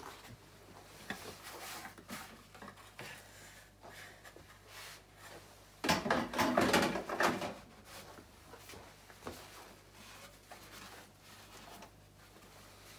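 Scattered knocks and clicks of hands handling the oil container and filler at an engine bay during an oil top-up, with a louder stretch of clatter about six seconds in lasting about a second and a half.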